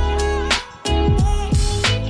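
Background music with a beat and deep bass, briefly dropping out about half a second in.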